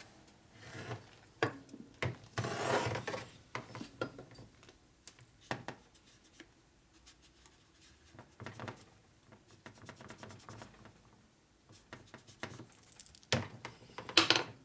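Cloth rag rubbing over the aluminium engine crankcase, wiping excess sealer off the case seam, with a few scattered sharp clicks and knocks of metal, the loudest near the end.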